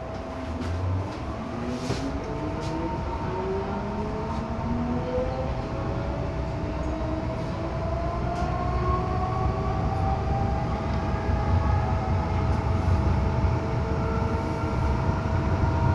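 MTR M-Train electric multiple unit accelerating, heard from inside the car: the traction motors whine in several tones that rise steadily in pitch, over a steady electrical hum and a low rail rumble that grows slowly louder.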